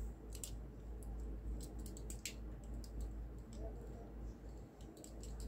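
Scattered light clicks and ticks of small plastic parts being handled: the earbuds and cable of a Bluetooth headset turned over and untangled in the hands, over a low steady hum.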